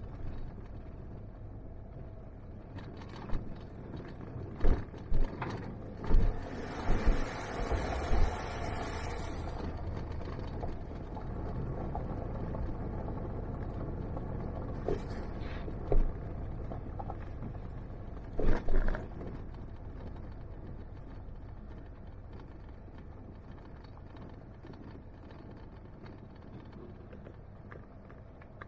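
Jeep driving along a sandy dirt road, heard from inside: a steady low rumble of engine and tyres, with scattered sharp knocks and thumps as it rides over bumps. About six seconds in there are a few seconds of louder hissing noise.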